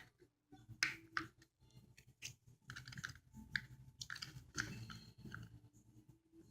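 Irregular small clicks, taps and brief scrapes of small objects being handled close to the microphone.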